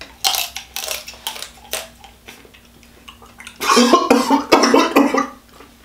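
Wet, smacking eating sounds of a person sucking and chewing king crab leg meat, a quick string of sharp clicks in the first two seconds, then a loud throaty sound from the eater's voice about three and a half seconds in.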